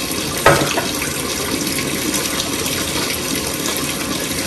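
Water running steadily from a kitchen tap, with a single knock about half a second in.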